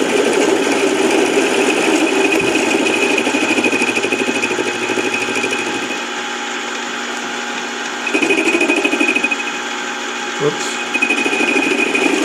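A 7x10 mini lathe running while milling, with the cutter taking a light pass and giving a fast, steady chatter over a high whine. The cutting eases about six seconds in and picks up again about two seconds later, and a short knock sounds near the end.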